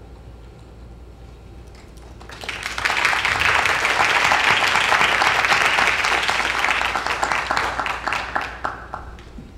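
Applause from a small audience: clapping starts about two seconds in, holds steady for several seconds, then thins to scattered claps and dies away near the end.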